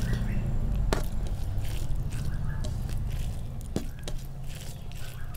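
Fingers squishing and mixing rice with dal and fish curry on a plate: soft wet squelching, with about three sharp clicks, over a steady low hum.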